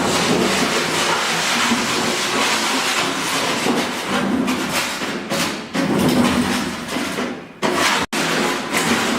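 Radio-controlled steel cart with hub-motor wheels driving hard: its motors whine up and down under a loud rattling, scraping noise, with a few knocks. The sound cuts out for an instant about eight seconds in.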